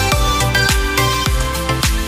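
Background music with a steady electronic dance beat: a deep kick drum about every 0.6 s under held synth notes.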